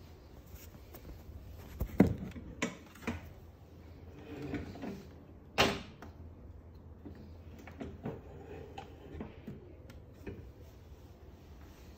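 Knocks and clicks from handling hard objects on a desk: a sharp knock about two seconds in, two more soon after, a short scrape, then a loud sharp knock a little before the halfway point, with lighter taps after.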